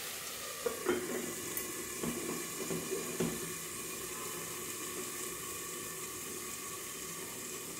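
Prawn curry cooking in a pan under a stainless steel lid: a steady soft sizzle and hiss. A few faint clinks from the lid settling onto the pan come in the first three seconds.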